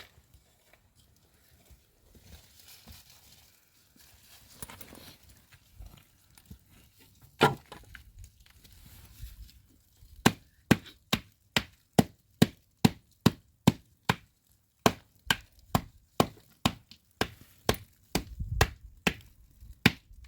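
Sharp knocks: one single strike about seven seconds in, then a steady run of strikes at about two to three a second through the second half.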